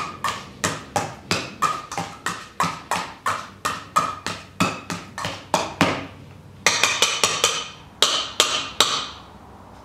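A wire potato masher mashing avocado in a stainless steel bowl: a steady run of sharp metal clanks, about three a second, then a quicker cluster of brighter clinks near the end.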